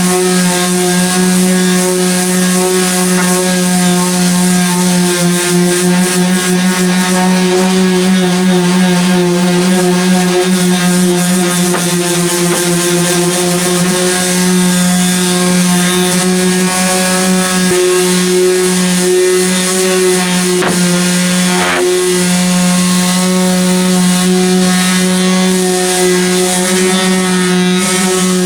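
Power sander running steadily at a constant pitch, sanding back old paint on the car's body panels.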